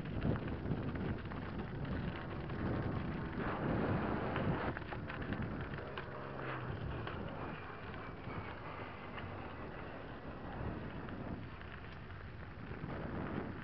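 Mountain bike rolling downhill on a loose gravel track: tyres crunching over stones and the bike rattling, with wind buffeting the microphone.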